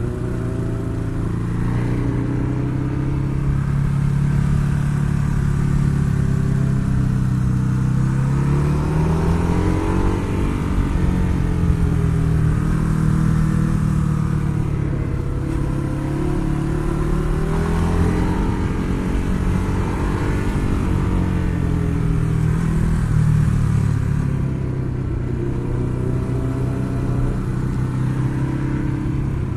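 Ducati Hyperstrada's 821cc L-twin engine running under way, its pitch rising and falling over and over as the throttle is rolled on and off.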